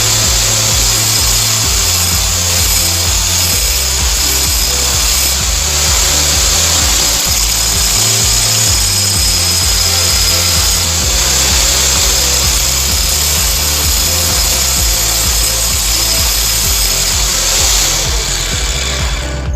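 A power tool running steadily on steel for most of the stretch, stopping shortly before the end, over background music with a stepping bass line.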